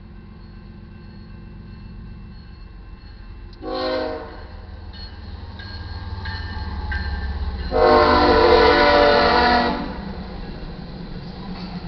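Air horn of an approaching diesel freight train's lead locomotive, a GE ES44DC, sounding for a grade crossing: a short blast about four seconds in, then a long blast near eight seconds. The locomotives' low rumble grows louder as they near, over the steady ringing of the crossing bell.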